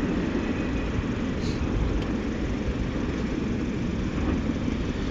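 Steady low vehicle rumble with no distinct knocks or tones.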